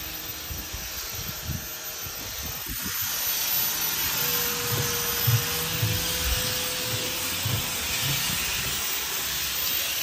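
A steady hiss, with irregular soft low thuds of footsteps on a wooden deck and a faint steady tone for a few seconds in the middle.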